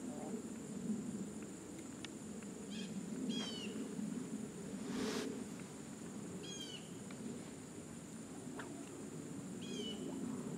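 Outdoor ambience with a steady high insect drone, broken by a short, high, falling animal call repeated four times. A brief breathy rush sounds about halfway through.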